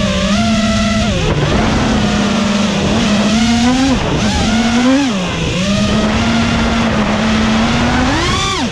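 FPV quadcopter's motors and propellers whining, heard from on board the drone, the pitch rising and dipping as the throttle changes. Near the end the whine climbs quickly, then drops sharply as the throttle is cut.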